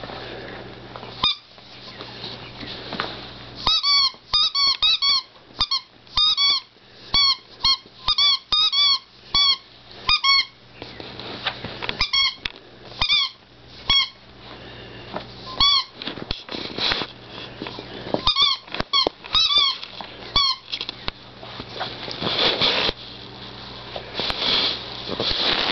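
A puppy chewing its squeaky toy pig, the squeaker going off in quick runs of short squeaks, several a second, with pauses between runs. Near the end, softer rustling takes over.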